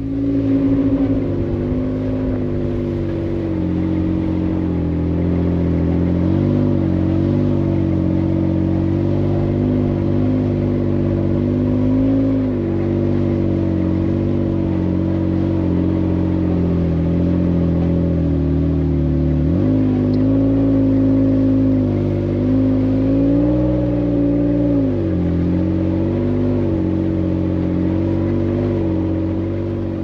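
Recovery truck's engine running under steady load while towing a pickup up a slushy snow road. The revs rise and fall several times, with a quick rise in pitch about two-thirds of the way through, heard from inside the cab.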